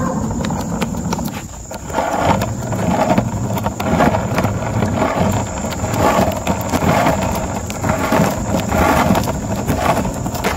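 Skateboard wheels rolling over pavement: a steady rumble with frequent short clicks.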